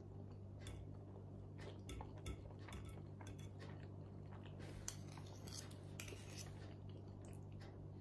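Metal knife and fork scraping and clinking faintly against a plate while cutting food, in scattered light clicks, over a steady low hum.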